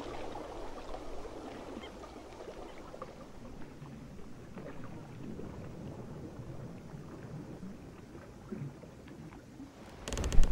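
Ambient soundtrack of an animated short: a steady low rumbling wash of noise with faint scattered ticks, broken about ten seconds in by a sudden loud crash.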